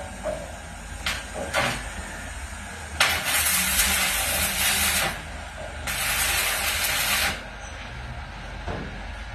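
Electric arc welding: two short bursts of hissing, crackling arc, the first about two seconds long and the second shorter, with a few light metallic knocks between the welds.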